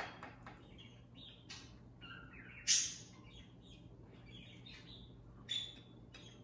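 Metal serving utensil scraping and clinking against a ceramic baking dish and plate as a piece of lasagna is lifted out, with short squeaky chirps and a sharp clink about two and a half seconds in, then a smaller clink near the end.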